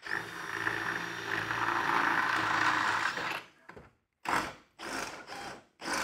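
Cordless drill boring through an aluminium boat rib: the motor runs steadily with the bit cutting metal for about three and a half seconds, then stops, and a few short bursts follow.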